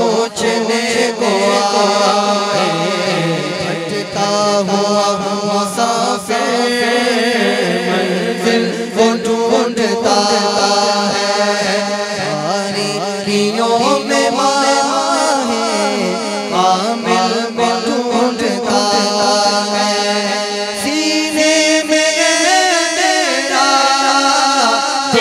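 A man singing a devotional Urdu naat into a microphone, in long held notes that bend and wind in pitch.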